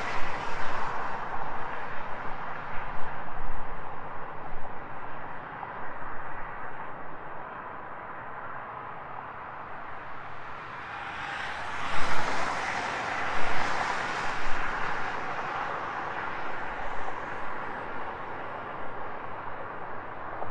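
Road traffic passing: the tyre and engine noise of a car fades as it drives off, then a second, louder pass swells about halfway through and dies away again.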